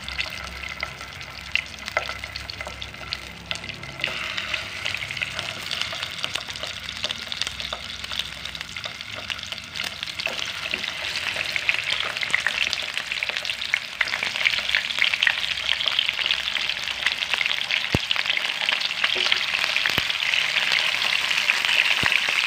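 Chicken drumsticks frying in a little oil in a nonstick pan: a steady crackling sizzle that grows louder as more pieces are added. A spatula scrapes and knocks in the pan near the end.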